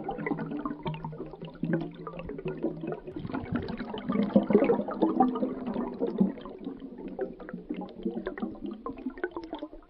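Bubbles rising and gurgling underwater: a continuous stream of many small bubbling pops, busiest a few seconds in and thinning out near the end.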